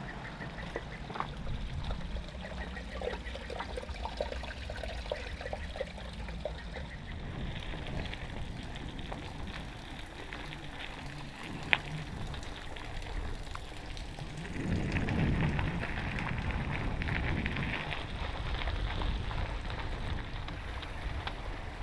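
Mountain bike rolling over a dirt and gravel path: a steady crunching hiss from the tyres on grit, with scattered rattling clicks from the bike, one sharp knock about twelve seconds in, and a louder stretch past the middle.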